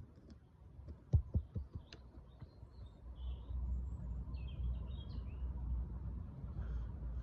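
Birds chirping briefly and faintly over a steady low rumble that swells about three seconds in, with a few soft low thumps in the first two seconds.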